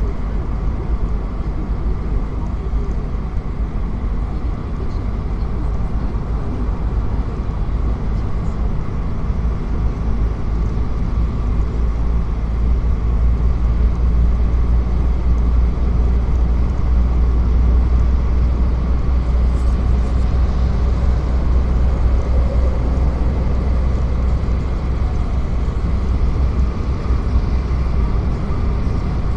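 Steady rumble of a car driving along a road, engine and tyre noise without a break, getting a little louder around the middle.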